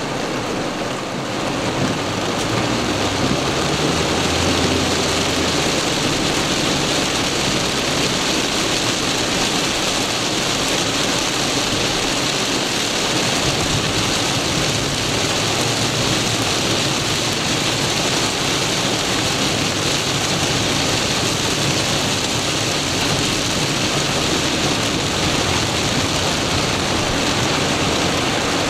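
Torrential rain pouring steadily onto a moving car, heard from inside the cabin, with a dense, even hiss of water on the car and the wet road.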